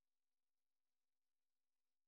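Digital silence: no sound at all.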